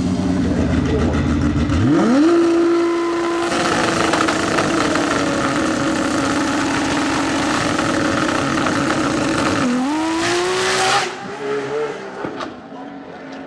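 A drag race car's engine revs up sharply from a low rumble and runs hard at high, steady revs for about seven seconds during a pass down the drag strip. It then cuts off suddenly and fades away.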